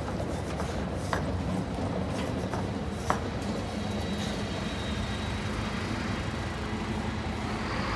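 Articulated city bus with a biogas engine driving slowly past close by over cobblestones: a steady running rumble, with a couple of sharp clicks about one and three seconds in.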